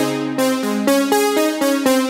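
Electronic background music: synthesizer notes stepping to a new pitch several times a second over a steady beat.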